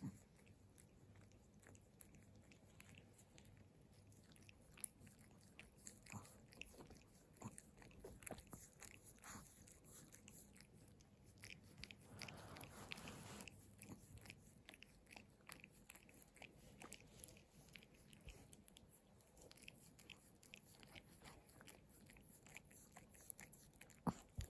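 A Pomeranian licking bare feet: a long run of faint, irregular wet tongue clicks and smacks, with a brief rush of noise about halfway through.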